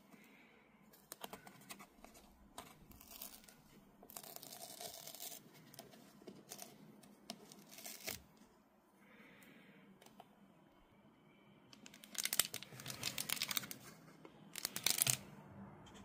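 Hands opening a cardboard speaker box: a paper seal tab peeled and torn, with scrapes of cardboard and crinkles of plastic wrap in short, scattered bursts. The busiest handling comes about four seconds in and again near the end.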